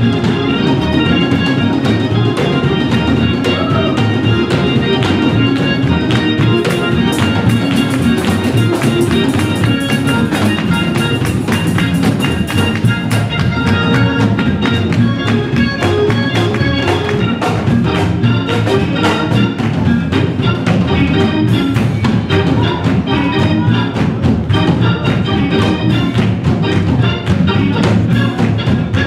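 Live band music with a drum kit keeping a steady beat under other instruments, played throughout.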